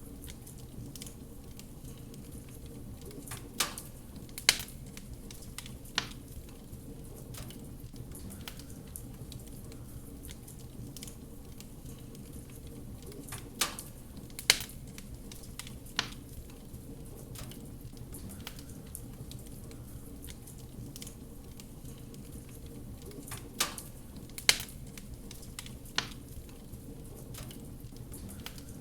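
Wood fire crackling in a fireplace: a steady low rumble and hiss with scattered small crackles. Sharp pops come in three clusters of about three, roughly ten seconds apart.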